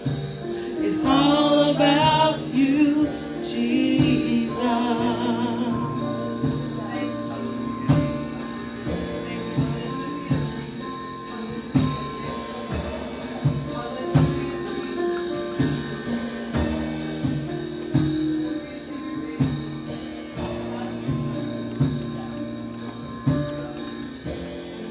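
Gospel worship music: a woman's voice sings with vibrato over sustained keyboard chords for the first several seconds. After that the MX88 keyboard plays on alone, held chords with a steady beat of soft percussive hits.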